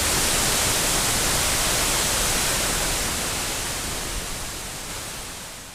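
Steady rushing roar of a waterfall, which fades out over the last couple of seconds.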